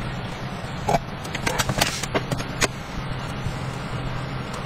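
A ceramic pour-over coffee dripper and a steel cup are handled and set down, making several light clinks and knocks on a wooden table and a metal bowl, most of them bunched together around the middle, over a steady low hum.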